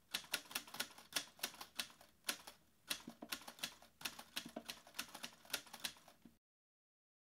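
Typewriter sound effect: a run of uneven keystroke clicks, several a second, that cuts off suddenly a little over six seconds in.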